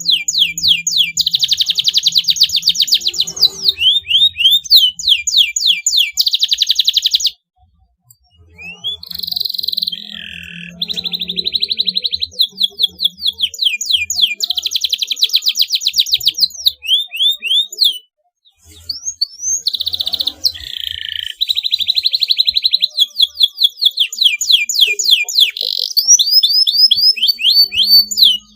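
Domestic canary singing a long song of very fast repeated trills and rising chirps, breaking off briefly twice.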